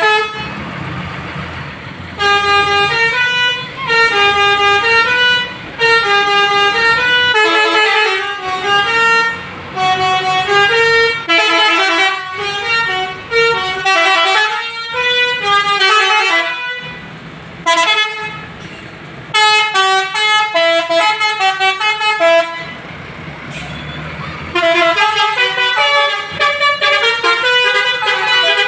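Bus 'telolet' musical air horn (Basuri) playing quick runs of stepped multi-tone notes, a jingle-like melody repeated in loud phrases with short breaks. After a pause of about two seconds near the end, it starts up again.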